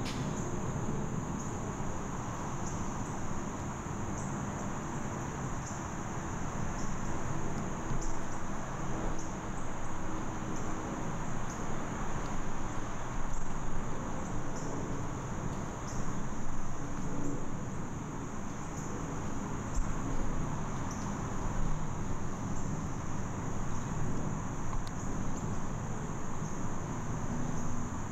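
Woodland insects chirring steadily in one high, even band, pulsing about once a second, over a low steady rumble.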